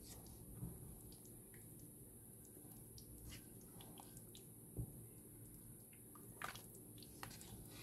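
Faint wet pops and squelches from a pot of thick mutton curry as a spatula stirs it, scattered over a steady low hum.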